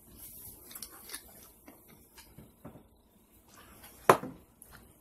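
Faint scattered clicks and taps of food and tableware being handled, then, about four seconds in, one short sharp crack-hiss as the twist-off cap of a glass bottle of orange soda is cracked open.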